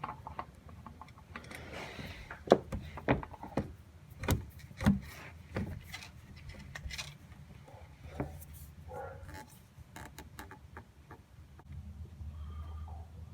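Scattered knocks and clicks of parts and containers being handled during a car oil change, over a low steady hum; the sharpest knocks come between about two and six seconds in.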